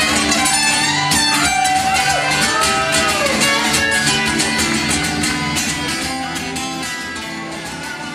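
Two acoustic guitars strummed fast together in a live instrumental passage, with no singing. The playing eases off and grows softer near the end.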